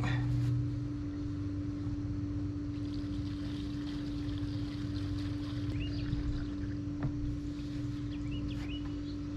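A steady mechanical hum, like an engine running, under diesel being poured from a container through a funnel into a tractor's fuel tank, with a faint hiss of the pour and a few short faint chirps.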